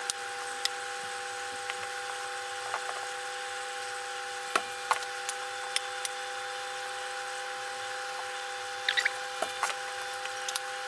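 Sparse soft knocks and taps as a hollowed Hokkaido pumpkin half is filled by hand with couscous and minced meat on a wooden board, with a quick cluster of clicks near the end, over a steady background hum.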